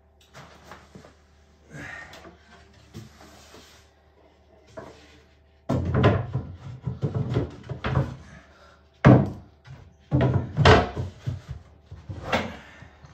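Plywood cases being handled and packed: a run of wooden knocks, bumps and scrapes, quieter at first and with the loudest thumps in the second half.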